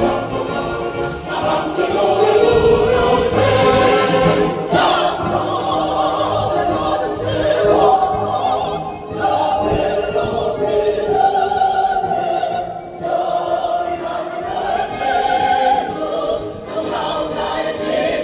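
A mixed choir of men and women singing in harmony, holding long notes that move from chord to chord.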